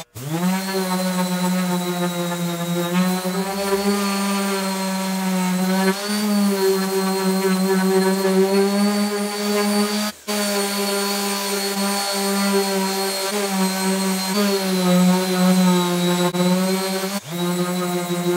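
5-inch random orbital sander running on a black walnut board, its motor spinning up at the start and then holding a steady whine whose pitch wavers slightly as it is worked across the wood. It drops out briefly about ten seconds in and again about seventeen seconds in.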